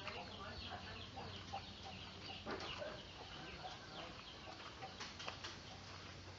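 Chickens clucking in the background, with many short, scattered calls and chirps, a faint steady low hum, and a light knock about two and a half seconds in.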